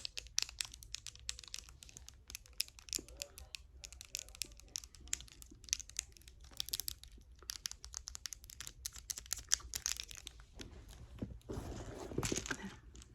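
Rapid, irregular fingernail tapping and light scratching, mixed with crinkling handling noise; a longer rustling stretch comes near the end.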